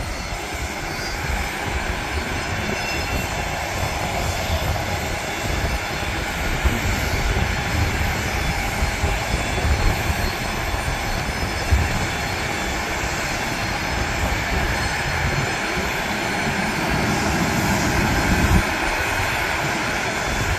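Steady rumble and hiss of airport ramp noise from parked jets and ground service equipment, with wind gusting on the microphone.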